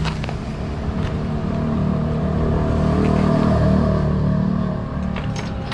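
A motor vehicle engine running close by, growing louder to a peak a little past the middle and then fading, as of a vehicle passing.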